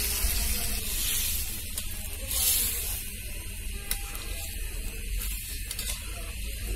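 Prawn curry boiling and sizzling in a steel pot just after water has been added to the masala, a steady hiss with a louder swell a little after two seconds. A spatula stirs it, giving a few sharp clicks against the pot in the second half.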